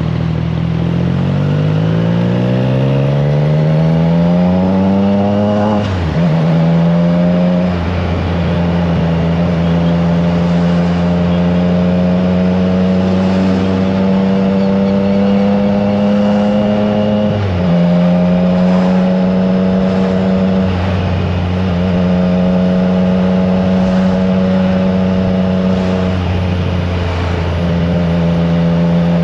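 Triumph Trident 660's inline three-cylinder engine through an aftermarket FireTong exhaust, heard from onboard. The revs climb for about six seconds, then drop sharply as it shifts up, and it cruises at steady revs with a few brief throttle lifts, over wind noise.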